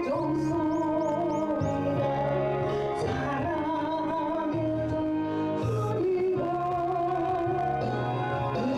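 A Korean gospel hymn: a sung melody with a wide vibrato over a backing track with a stepping bass line.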